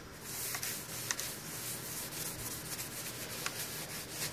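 Blue towel wiped back and forth across the top plate of a Technics SL-1200 turntable, cleaning off excess DeoxIT contact-cleaner spray: continuous rubbing in irregular strokes.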